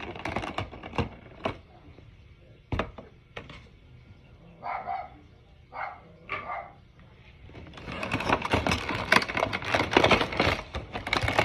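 Plastic packaging crinkling and rustling as a small toy figurine is unwrapped, thick and continuous for the last few seconds. Before that come a few knocks and bumps from handling, and two short sounds around the middle.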